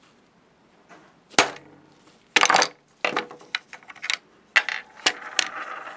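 Hammer striking a socket set over a speed nut on a slit-lamp chinrest post: several sharp metallic blows, with lighter taps between them, driving the nut's tabs down into the plastic chinrest cup.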